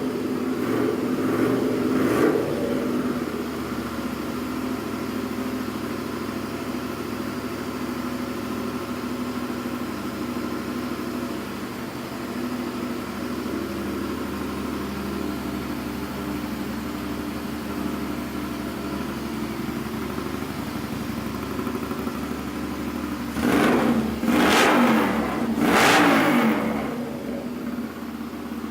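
Custom Honda CX500's liquid-cooled V-twin, on Murray's carbs and a custom 2-1-2 exhaust, idling steadily. There are a few short throttle blips near the start, and three sharp revs in quick succession near the end before it settles back to idle.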